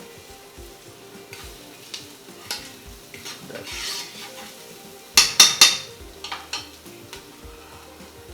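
Onions and garlic sizzling as they are sautéed in a pan and stirred with a utensil. About five seconds in, the utensil clatters sharply against the pan three times.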